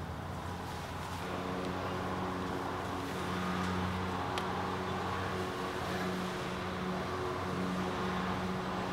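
Steady low motor drone with several held hum tones over a background hiss.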